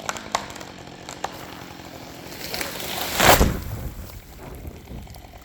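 A large spruce tree falling: a few sharp snaps, then a swelling rush of branches through the air that ends in a heavy crash on the ground a little over three seconds in, trailing off into a low rumble.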